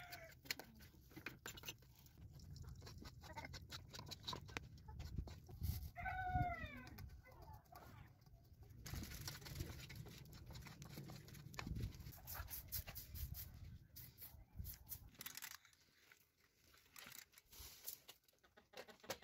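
Outdoor yard sounds: scattered knocks and clatter over a low rumble, with one short animal call about six seconds in, typical of farmyard fowl.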